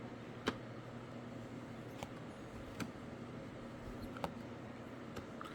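Faint handling of Prizm football trading cards: a handful of sharp ticks, a second or so apart, as cards are slid and flipped one at a time, over a low steady hum.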